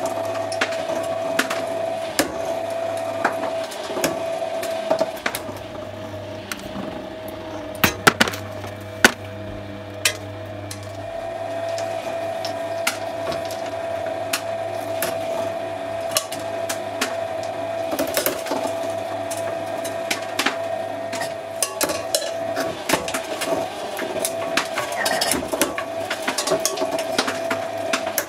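Twin-shaft shredder running with a steady motor hum and whine while its steel cutters crack and snap plastic toothbrushes: irregular sharp cracks and clacks, with a few loud ones about eight to nine seconds in.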